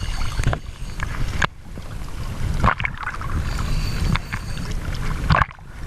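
A boat under way on the sea, with wind rumbling on the microphone. The sound breaks off and changes abruptly twice.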